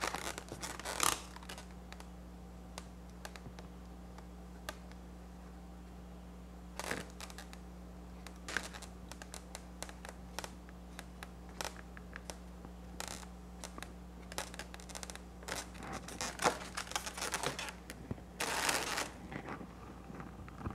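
Black Sharpie marker drawing short tooth lines on an inflated latex balloon: scattered light ticks and scratches of the pen tip and fingers on the rubber, over a steady low hum. A longer rustling of hands on the balloons comes near the end.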